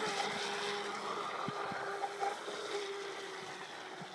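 Miss Geico 29 radio-controlled racing boat's brushless electric motor whining at speed on a 4S battery. The pitch stays steady and the sound fades slowly as the boat runs away across the water.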